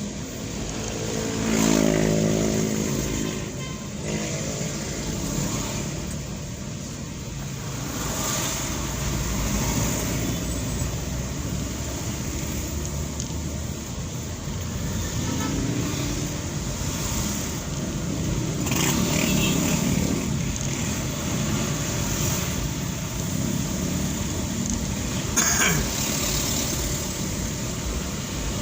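Vehicle engine and road traffic noise in slow city traffic, with vehicles speeding up now and then. A louder pitched engine sound comes about two seconds in.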